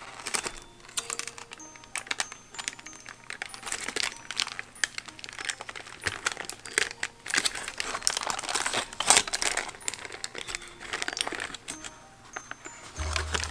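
Aluminium foil crinkling and crackling as it is peeled back off a foil loaf pan, with soft background music underneath.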